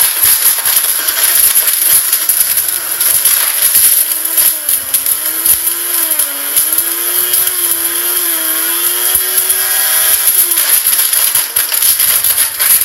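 Blender running hard with a mobile phone inside, the pieces clattering and rattling against the jar in rapid, irregular clicks. Partway through, the motor's whine wavers up and down in pitch for several seconds before steadying and fading back into the noise.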